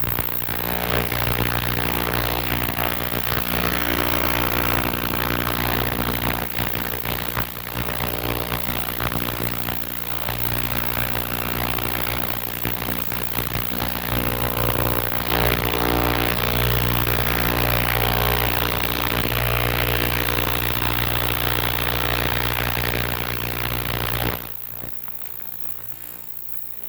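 Ultrasonic cleaner running, a steady loud buzzing hum with hiss, cleaning gum out of a blocked lawnmower carburettor main jet in a dish-liquid bath. The sound drops off sharply a few seconds before the end.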